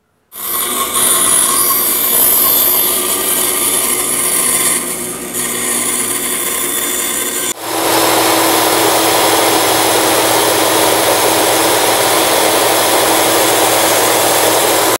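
A power saw cutting the half-inch plywood blank. About halfway through this breaks off abruptly and an upside-down Bosch belt sander takes over, running steadily with a held hum as the blank's rounded end is sanded to the traced line.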